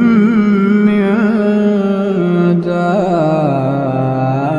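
Solo male Qur'an reciter's voice, chanting in melodic tajwid style and drawing a phrase out in long, ornamented held notes with small trills. The pitch drops lower about halfway through.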